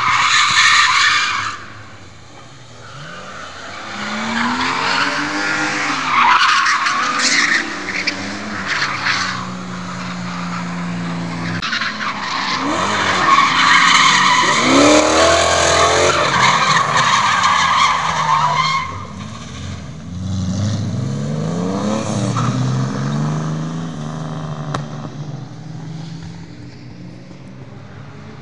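Drift cars sliding through a corner: long tyre screeches over engines revving up and falling back again and again. A loud screech opens it, and the screeching is heaviest again around the middle.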